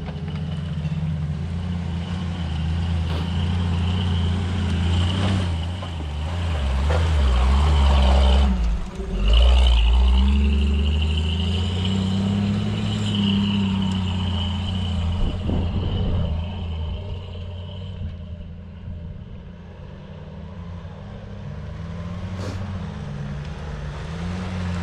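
Engine of a 4x4 off-road vehicle driving up and past on a dirt track, growing loudest about eight to ten seconds in, with a high whine for a few seconds, then fading away. Another vehicle's engine grows louder near the end.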